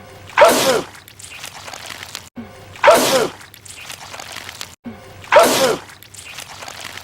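A man sneezing loudly three times, a wet sneeze repeated the same way about every two and a half seconds, each one preceded by a brief silent gap.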